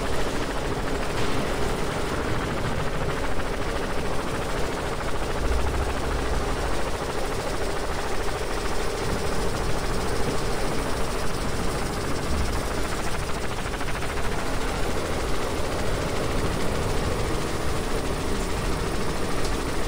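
Helicopter hovering overhead, rotor and engine running steadily with a steady hum.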